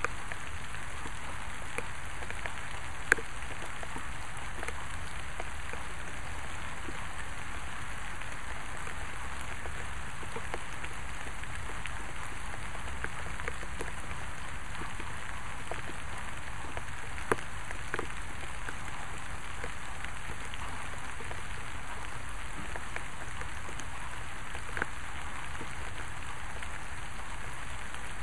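Steady rain falling, with scattered drops ticking nearby. Three louder single drips stand out: a few seconds in, past the middle, and near the end.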